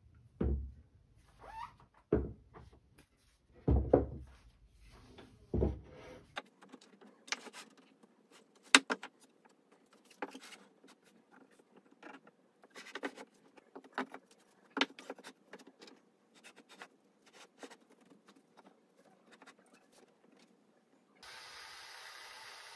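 Wooden knocks and clacks as 2x4 spruce-pine-fir legs and stretchers are set down and fitted together on a plywood bench top: four heavy knocks in the first six seconds, then many lighter taps. Near the end a steady whirr starts as a cordless drill begins driving a screw.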